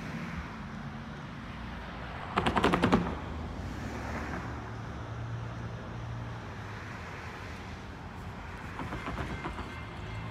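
Distant approaching Norfolk Southern GE AC44C6M diesel locomotive: a low, steady engine hum over a faint rumble, growing a little stronger partway through. About two and a half seconds in comes a short, loud burst of rapid clicking.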